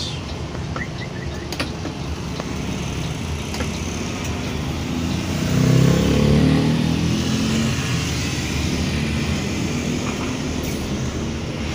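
Steady engine and road noise inside a moving intercity bus's cabin, with the engine note growing louder for a couple of seconds around the middle.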